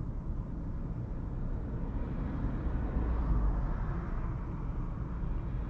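Toyota Camry hybrid driving along, a steady low road and tyre rumble with no change in engine pitch.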